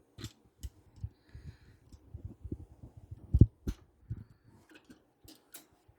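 Irregular clicks and knocks of a metal 1/4-inch drive socket extension being handled and another piece fitted into its end, with one louder knock about three and a half seconds in.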